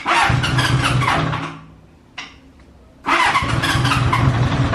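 A Honda CB850 motorcycle being started on its electric starter, freshly fitted with a new battery. A first try lasts about a second and a half and dies away, there is a short click about two seconds in, and on the second try about three seconds in the engine starts and keeps running.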